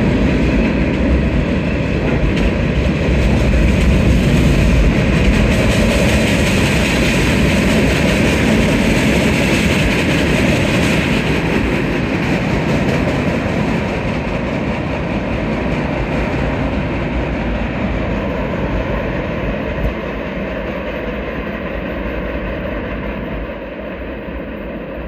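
Norfolk Southern freight train's railcars rolling over the rails in a steady noise of wheels on track, fading gradually as the end of the train moves away.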